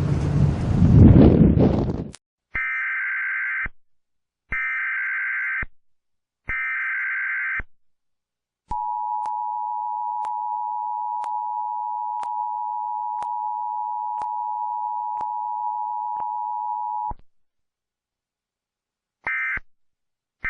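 Strong wind buffeting the microphone for about two seconds, then an Emergency Alert System tone sequence. Three one-second bursts of data tones are followed by the steady two-tone attention signal for about eight seconds, then short end-of-message bursts near the end.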